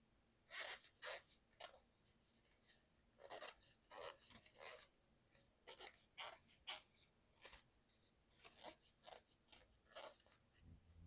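Faint, irregular scratchy scrubbing strokes from keyboard parts being cleaned.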